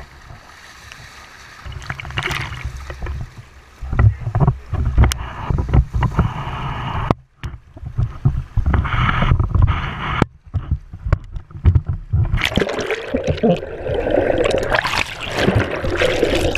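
Wind buffeting an action camera's microphone, with water splashing along a boat's side. From about twelve seconds in, the noise becomes a dense rush of water and bubbles as the camera goes under the surface.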